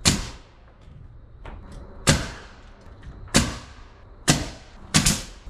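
Sharp, loud blows on timber framing, about six of them at uneven intervals, each with a short ringing tail and a quick double strike near the end: nails being driven into the cabin's frame.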